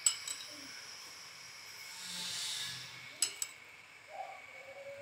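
Steel spoon clinking against a small ceramic bowl while sugar syrup is spooned onto a sponge cake layer: two light clinks at the start and two more about three seconds in, with a soft hiss a little after two seconds.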